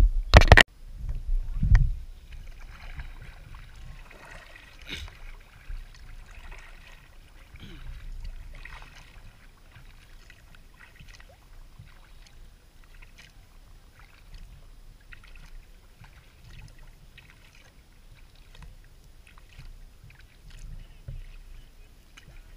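Kayak being paddled: a few loud knocks and thumps in the first two seconds, then quieter paddle strokes moving water, with scattered light ticks and splashes.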